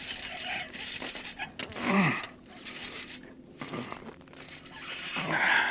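Short wordless exclamations from an angler fighting a hooked bass, one about two seconds in and another near the end, over a steady background of wind noise.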